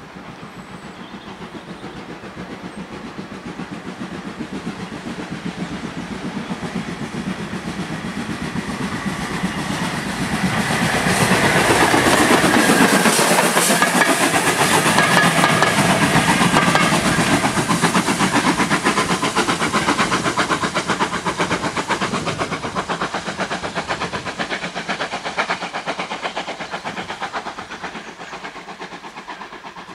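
Steam locomotive hauling a passenger train past at close range: the sound builds, is loudest about halfway through, then fades away, with a fast rhythmic clatter of wheels on the rails.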